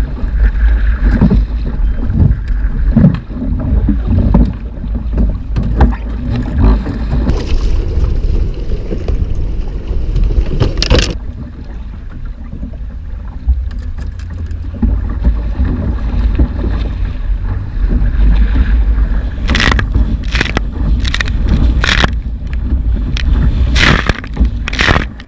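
Motorboat running through rough water, with heavy wind rumble on the microphone and water rushing past. A sharp knock comes about eleven seconds in, and a run of sharp knocks near the end.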